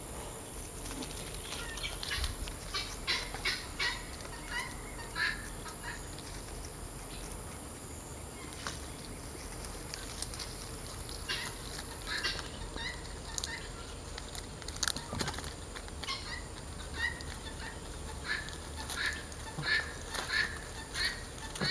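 Chickens clucking in quick runs of short calls, thickest in the first few seconds and again near the end.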